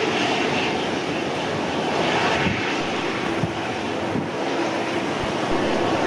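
Strong wind buffeting the microphone with low thumps, over a steady distant hum of jet aircraft engines.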